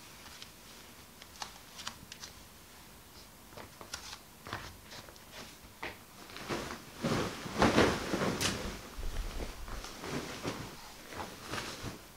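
Duvet and bedding rustling and flapping as a bed is made, loudest for a couple of seconds in the middle, after a few light taps and clicks.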